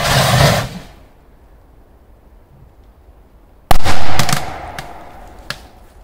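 A hissing burst fades out in the first second, then a large firecracker explodes inside a metal washing machine at about three and a half seconds in. It is one very loud bang with a ringing tail that dies away over about a second.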